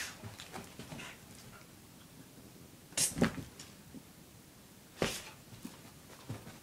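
Two dogs play-fighting: scuffling and short growls, with two louder outbursts about three and five seconds in.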